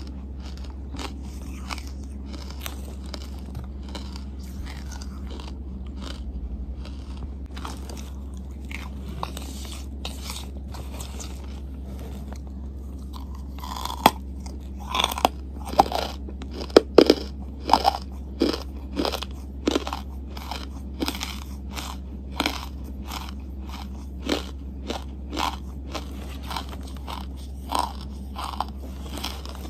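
Charcoal chunks being bitten and chewed close to the microphone: soft chewing and small clicks at first, then from about halfway a run of loud, crisp crunches, one or two a second.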